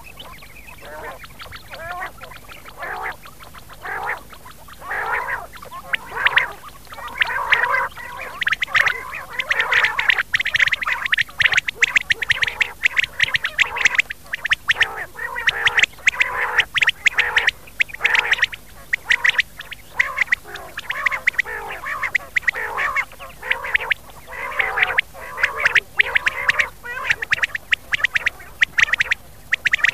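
Rain quail (batair) calling: many short calls in quick succession, overlapping like a flock. They are sparse at first and become a dense, loud chorus from about a quarter of the way in.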